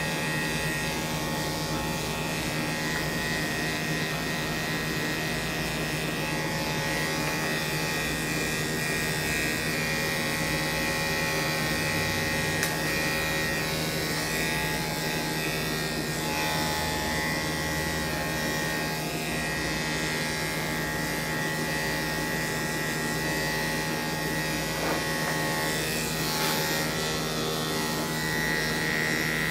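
Corded electric dog-grooming clippers running with a steady buzz as they shave down a dog's long coat.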